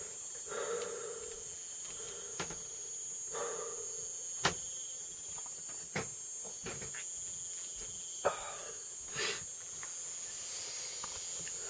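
Steady high-pitched chorus of night insects, with scattered sharp clicks and a few brief soft noises.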